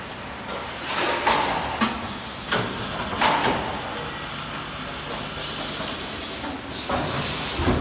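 DCS-10F7N rice vacuum packing machine running: a series of short hissing and clunking bursts, several in the first few seconds and more near the end, over a steady low hum.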